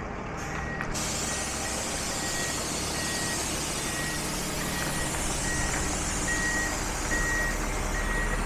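Reversing alarm on a delivery semi with a truck-mounted forklift, beeping steadily about three times every two seconds over the running engine. A steady hiss sets in about a second in.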